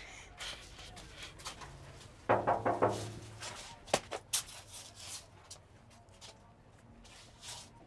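Knocking on a painted metal door: a quick run of about five knocks a little over two seconds in, then two more single knocks about a second and a half later.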